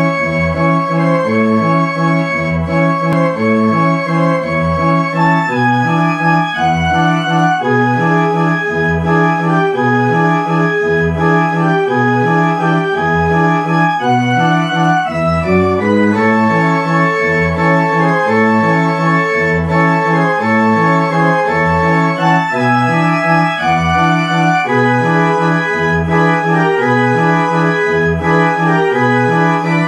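Carousel band organ music playing a tune over a steady oom-pah accompaniment, a low bass note about once a second alternating with chords.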